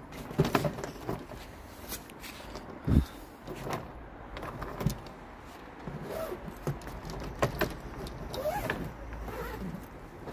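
Suitcase being handled: scattered knocks, clicks and light rattles, with a few short scraping or creaking sounds near the end.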